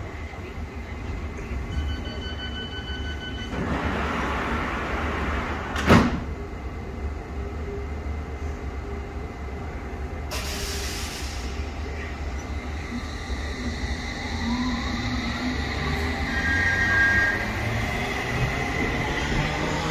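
London Underground S7 stock train at a platform: door-closing beeps, the doors sliding shut with a sharp clunk about six seconds in, a hiss of air, then the traction motors whining up in pitch as the train pulls away.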